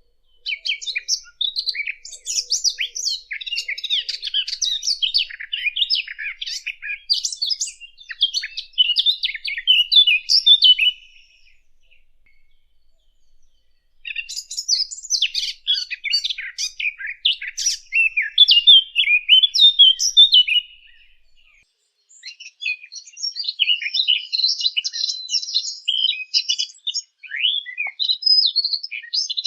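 Song of the fig bird (الدخل), a Sylvia warbler: three long phrases of fast, jumbled, varied warbling, with short pauses after about eleven and twenty seconds.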